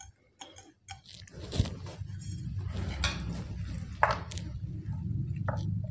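Quiet handling of a metal spoon and fork over a metal food tray: a few short, soft clicks, the clearest about four seconds in. A steady low hum sets in about a second and a half in.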